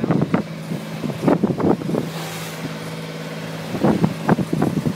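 Wind gusts buffeting the microphone, strongest about a second in and again near the end, over the steady low hum of a sailing yacht's engine.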